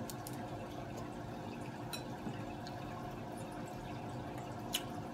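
A steady background trickle of running water, with a few faint sharp clicks of crab shell being picked apart by hand.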